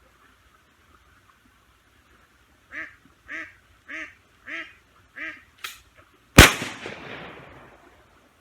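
Ducks quacking five times in quick succession, about two calls a second. About two seconds after the calls start, a single shotgun blast goes off, far louder than anything else, and trails off over a second or so.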